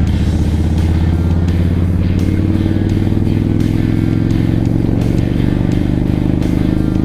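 V-twin cruiser motorcycle engine running steadily at highway cruising speed, its pitch rising slightly about two seconds in, with music underneath.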